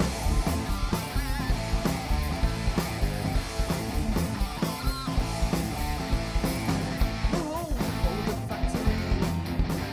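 Live heavy metal band playing, with distorted electric guitars over bass guitar and drums.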